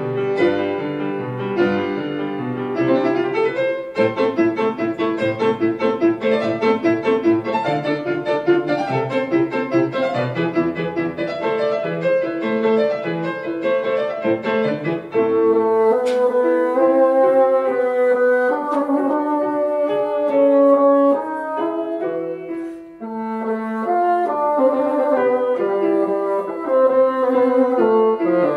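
Grand piano playing a classical introduction alone. About halfway through, a bassoon comes in with long held notes over the piano accompaniment.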